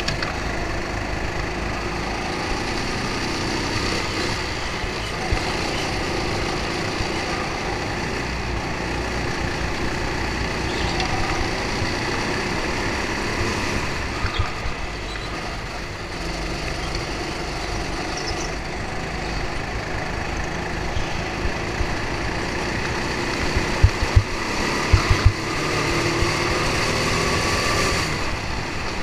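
Racing go-kart heard from onboard, its motor running continuously at speed with the pitch rising and falling through the corners. A few sharp knocks come close together about three-quarters of the way through.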